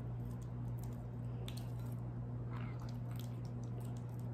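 Hands squeezing and kneading wet, runny edible slime in a glass bowl, giving scattered soft squelches and sticky clicks. A steady low hum runs underneath.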